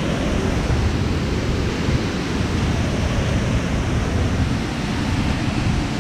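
Steady rush of the Salto del Laja waterfall: a loud, even wash of falling water, heaviest in the low rumble, with no breaks.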